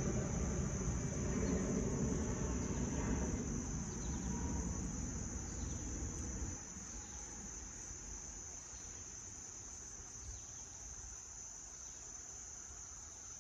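Steady high-pitched chorus of insects, with the low rumble of a plane passing overhead fading out about six seconds in.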